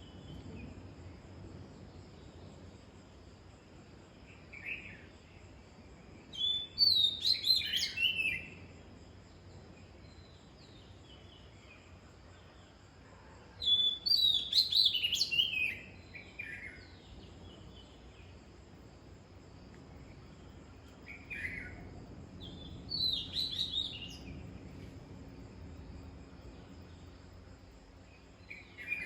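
A songbird singing three short phrases of quick, warbling notes, each about two seconds long and several seconds apart. A single brief call note comes just before two of the phrases.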